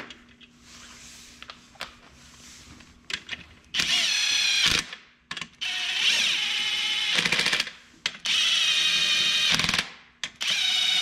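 A cordless power tool, run in four short bursts with its whine climbing in each, with a few light clicks before the first burst.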